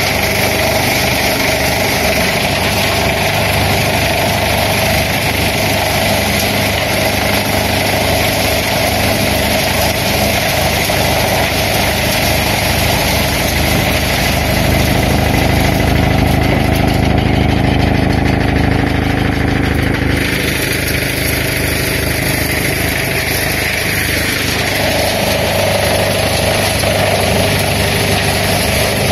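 Tractor-driven wood chipper running steadily, the tractor engine's low throb under the chipper's hum. Past the middle the sound deepens and grows a little louder for several seconds, then settles back.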